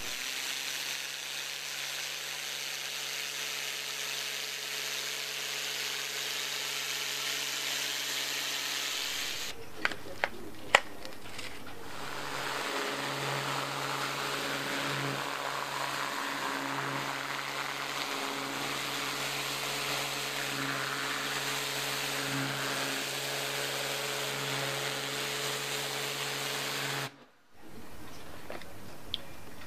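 Kärcher electric pressure washer running steadily: the motor-driven pump hums under the hiss of the high-pressure water spray. A few sharp clicks come about a third of the way in, and the sound cuts out briefly near the end.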